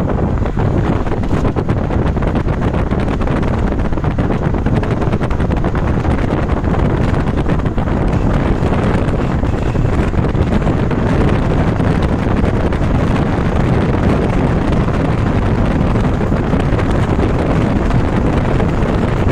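Wind rumbling on the phone's microphone with steady road and engine noise from a moving car.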